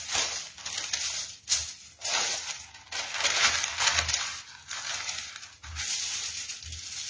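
A large sheet of baking paper rustling and crinkling in irregular bursts as gloved hands spread it out and smooth it flat over aluminium foil.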